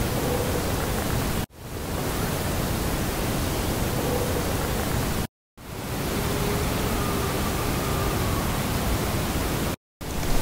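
Camera drone's propellers running: a steady rushing whir with a faint wavering whine in it, cut off briefly three times.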